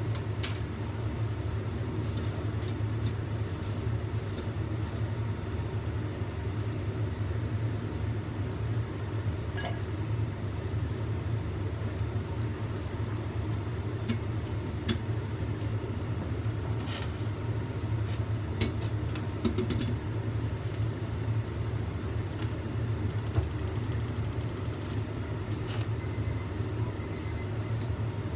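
Steady low hum of a kitchen, with scattered light clicks and clinks as cookware and an oil bottle are handled.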